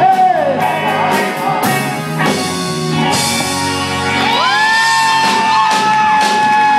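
Live band and male singers finishing a blues number: a sung line falling at the start, then a long note that slides up about four seconds in and is held to the end.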